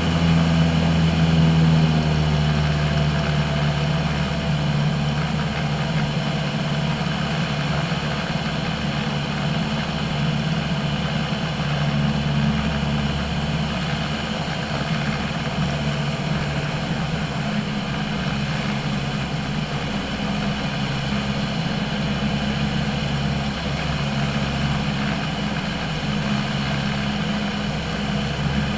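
Single-engine propeller airplane's piston engine and propeller droning steadily, heard from inside the cockpit. The drone eases slightly about two seconds in, then holds steady.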